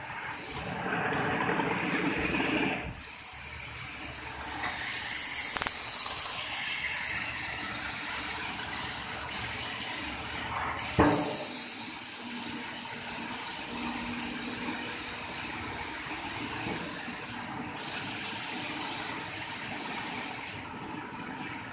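Fiber laser cutter cutting stainless steel with compressed air as the assist gas: a loud, high hiss of air jetting from the cutting nozzle that starts about three seconds in and runs in long stretches with short breaks between cuts. A single sharp knock comes about halfway through.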